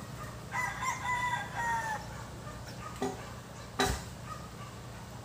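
A rooster crowing once, one call of about a second and a half. About three seconds in there is a faint knock, then a sharp, louder knock a moment later.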